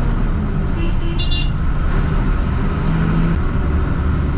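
Steady engine and road noise heard from inside a moving vehicle's cab, low and continuous, with a brief high-pitched squeak a little after a second in.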